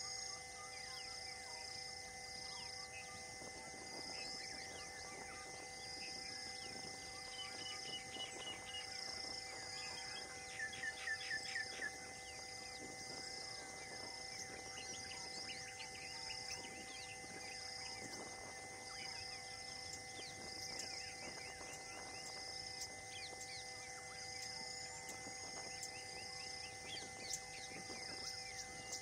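Forest ambience: a high insect-like pulse repeating about once a second, scattered bird chirps and faint rustling. About eleven seconds in, a bird gives a quick run of about five falling notes, the loudest sound here.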